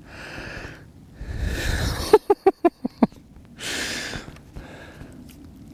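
A man breathing hard into the microphone, with a quick burst of laughter, about six short 'ha' pulses, a little past two seconds in, and a loud exhale just after it.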